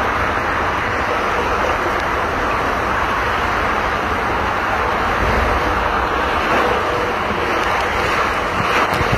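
Steady rushing of water as a rider slides feet-first down an enclosed water-slide tube.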